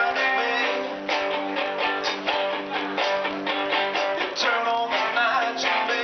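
Live rock band playing: electric guitars strumming over drums, recorded on a small camera microphone that picks up little bass.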